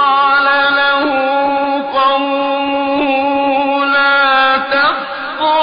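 Male Quran reciter chanting in the melodic, drawn-out mujawwad style: one voice holding long, steady notes. The phrase breaks off briefly about five seconds in and a new one begins. The recording is old and lacks treble.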